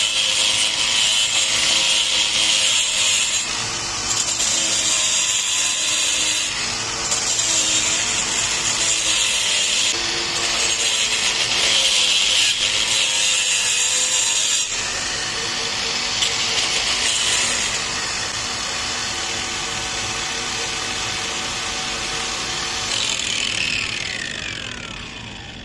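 Cordless angle grinder cutting into a brick: a loud, steady grinding whine as the spinning disc bites the masonry. Near the end the motor winds down, its whine falling in pitch.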